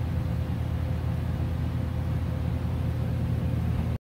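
Steady low rumble with a faint, steady hum above it, cutting off suddenly near the end.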